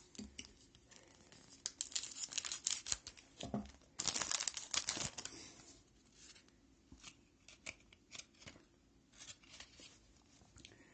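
Hockey card pack wrapper being opened: two spells of crinkling and tearing in the first half, then faint scattered clicks and rustles as the cards are handled.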